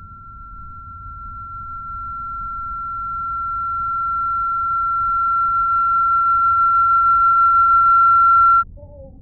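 A single steady high-pitched electronic tone that grows steadily louder for about eight and a half seconds, then cuts off suddenly near the end, over a faint low rumble.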